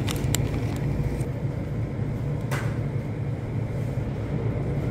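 Steady low hum of supermarket machinery, with two brief clicks, one near the start and one about halfway through.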